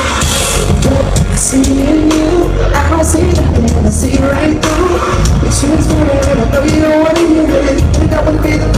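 Loud live band music recorded from the crowd, with a singer's voice over drums.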